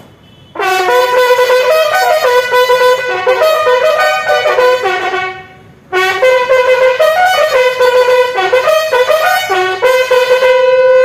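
Solo bugle call played for a last salute, in two phrases with a short break between them; the second phrase ends on a long held note.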